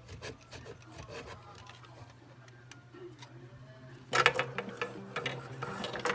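Parts of a Dyson DC63 vacuum's motorized cleaner head being handled: scattered clicks and rubbing, turning into a denser, louder clatter of clicks about four seconds in.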